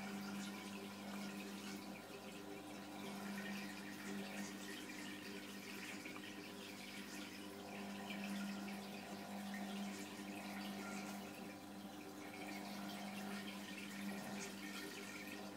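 Aquarium pump humming steadily, swelling and fading slightly, with water trickling and bubbling in the tank.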